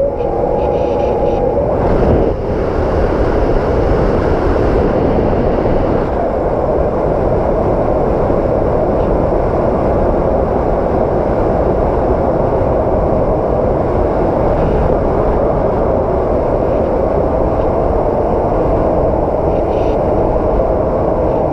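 Strong wind roaring steadily, with a thin whistle in the first second or so and a stronger gust about two seconds in.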